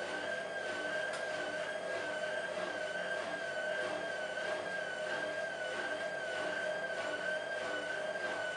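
Hotpoint 1000 De Luxe WM23W Aquarius Ultima washing machine on its final spin, its drum and motor running with a steady high whine that wavers gently in pitch about once a second.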